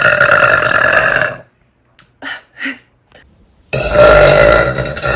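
Long, loud, drawn-out burps from a young woman. The first breaks off about a second and a half in, two short quieter sounds follow, and another long burp starts a little before the four-second mark.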